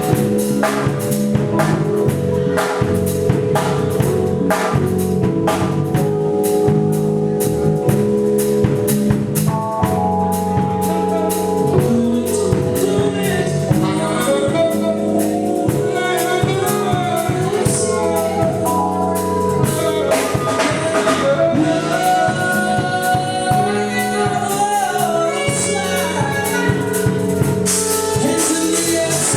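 Live band playing an R&B song with drum kit, bass and keyboards; the drums are busiest in the first third, and a singing voice carries the melody from about ten seconds in.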